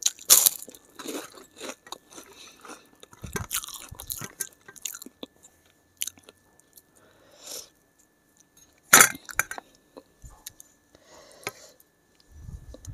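Close-miked biting and chewing of crisp sabudana papad. There is a loud crunch as it is bitten right at the start, then crunchy chewing with scattered crunches, and another loud crunch about nine seconds in.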